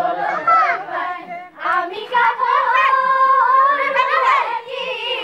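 Women's and girls' voices singing a Jiyari Bihu song, high-pitched, with one long held note about two seconds in.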